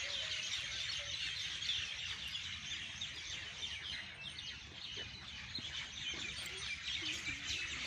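A dense, unbroken chorus of many birds chirping together in a tree at dusk, a flock of common mynas (laliyan) gathering to roost, over a low rumble of wind on the microphone.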